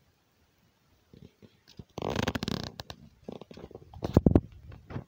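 Handling noise on a hand-held phone: fingers rubbing and scraping on the phone's body, first a dense scrape about two seconds in, then a run of knocks and rubs, loudest just after four seconds, as the phone is tilted down.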